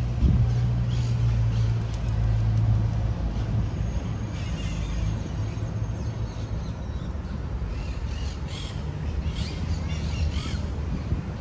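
Street-traffic engine rumble, steady and low, with harsh bird calls that start about four seconds in and repeat several times.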